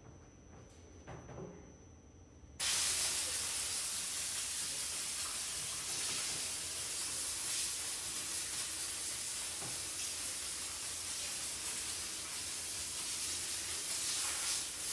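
A loud, steady hiss that starts abruptly about two and a half seconds in and holds evenly.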